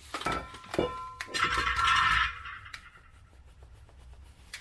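Metal parts and tools clanking against each other, several sharp knocks in the first second followed by a louder scraping rattle with a faint metallic ring, then quieter handling.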